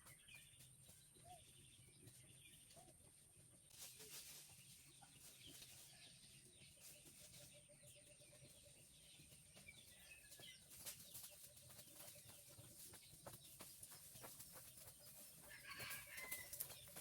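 Faint farmyard sounds: chickens clucking quietly, with scattered small clicks and rustles.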